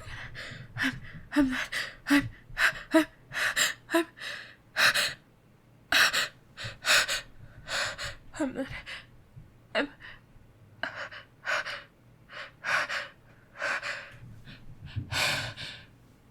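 A woman's short, repeated gasping in-breaths as a sneeze builds and she holds it back, some with a small voiced catch. The gasps come in quick succession at first, then more spaced out.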